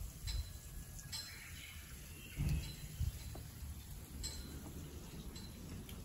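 Quiet outdoor forest ambience with a few brief high bird chirps and faint clicks, and two dull thumps near the middle.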